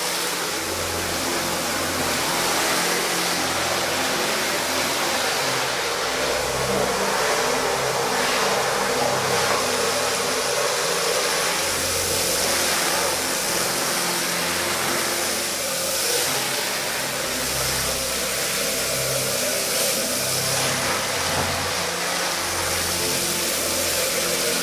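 Pressure washer running steadily, its wand spraying a wide jet of water onto a soaked rug: a continuous hiss of spray over the low hum of the machine.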